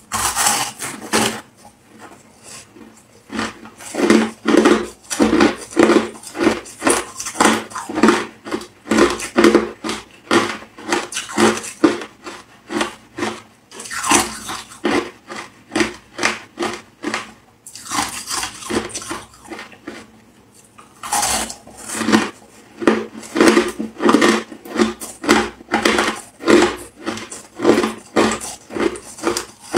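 Hard ice being bitten and chewed close to the microphone: a sharp bite, then runs of crisp crunching at about two chews a second, broken by short pauses between mouthfuls.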